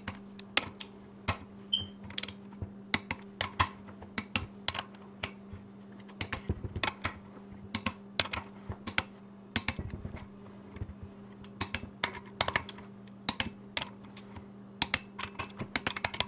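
Typing on a computer keyboard: irregular, quick key clicks in short runs, over a steady low hum.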